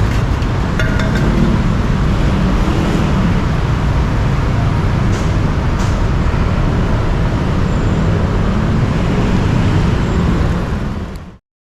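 Steady city road traffic with a deep engine rumble under a broad hiss, fading out to silence near the end.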